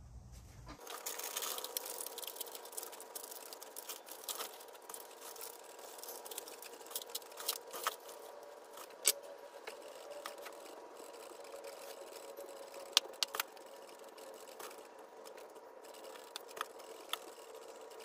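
Bonsai scissors snipping leaves and small shoots off a bougainvillea in sped-up footage: a scatter of sharp clicks, the loudest about 9 and 13 seconds in, over a steady hum.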